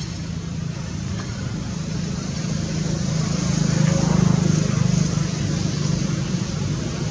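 Low engine hum of a motor vehicle, swelling to its loudest about four seconds in and then easing off, as a vehicle passes.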